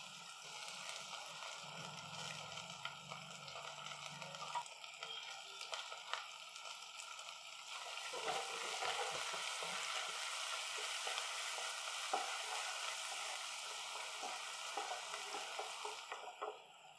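Chopped garlic, ginger and chillies sizzling in hot ghee in a nonstick pan, sautéing toward light brown. The sizzle grows louder about halfway in, when a wooden spatula starts stirring, with light scrapes and taps against the pan.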